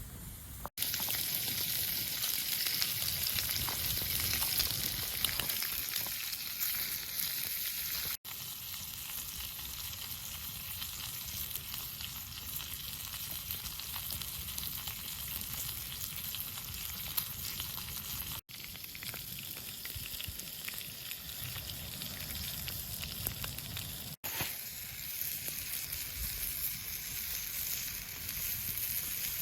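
Meat sizzling and frying in a pan over a campfire, a steady crackling hiss. It breaks off abruptly at a few points where one short clip cuts to the next.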